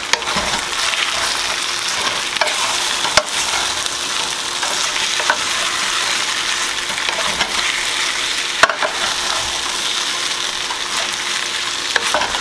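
Flour-coated beef chunks sizzling as they brown in a stainless steel skillet, stirred with a wooden spoon. The spoon knocks and scrapes against the pan a few times over a steady frying hiss.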